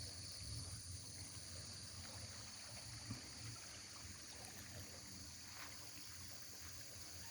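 Faint outdoor ambience: the steady high chirring of insects such as crickets, over a low rumble.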